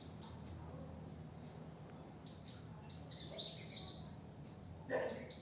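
Rose-ringed parakeet giving short, high chirps that fall in pitch, several in quick succession about halfway through.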